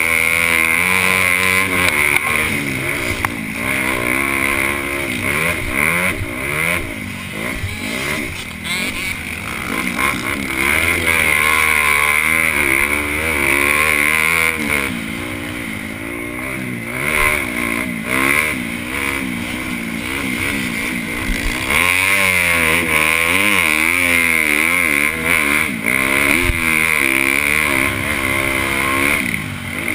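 Honda CRF250 motocross bike's single-cylinder four-stroke engine through a Yoshimura exhaust, racing hard: the revs climb and drop again and again with throttle and gear changes.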